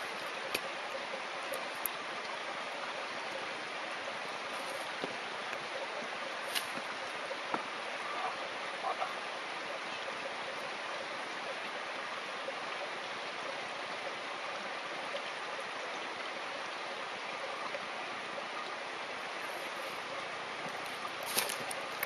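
A stream running with a steady rush of water, with a few scattered light clicks and knocks and a slightly louder knock near the end.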